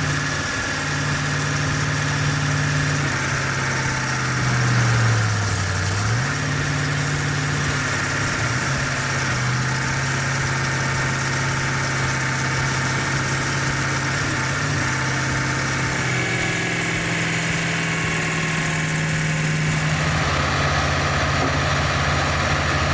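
Excavator's diesel engine running steadily. Its pitch dips briefly about five seconds in and recovers, and the engine note shifts again later.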